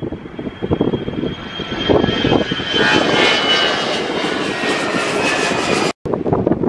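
Airliner engines at takeoff power: a rushing roar with a high whine swells in about two seconds in and cuts off abruptly about six seconds in. Wind gusts buffet the microphone throughout.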